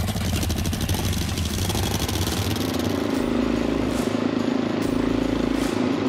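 Suzuki DR-Z400 single-cylinder four-stroke dirt bike engines running as the bikes ride off across a dirt yard, the engine note shifting about halfway through.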